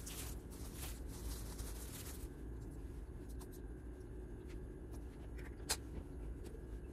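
Disposable plastic gloves crinkling and rustling as food is laid onto a tortilla for about two seconds, then quieter handling with a few small clicks and one sharper click near the end.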